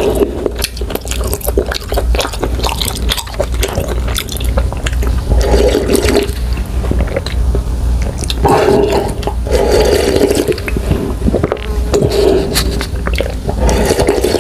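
Close-miked slurping of kimchi stew ramen noodles and broth from a paper cup, with wet mouth clicks between. The slurps come in a few long pulls, about five, eight and a half, and thirteen seconds in. The last comes as the cup is tipped up to drink the broth.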